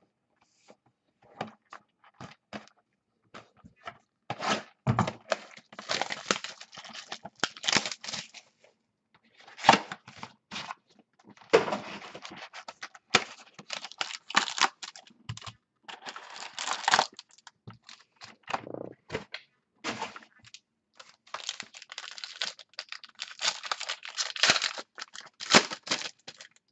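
Hands opening a cardboard trading-card box and handling a foil card pack: irregular tearing, crinkling and knocks of cardboard and wrapper, in stops and starts.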